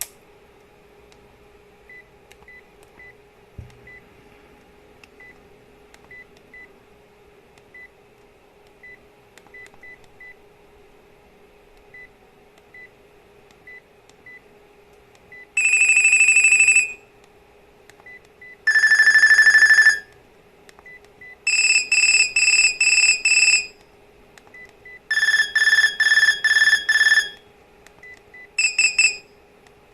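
Sharp GX30 mobile phone's speaker playing short electronic ringtone snippets, five in turn, each a second or two long, some steady and some pulsing rapidly. Faint short beeps run before them and between them; the snippets start about halfway through.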